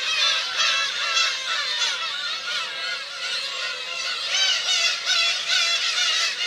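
A black-tailed gull colony calling: many overlapping, wavering gull calls in a continuous din.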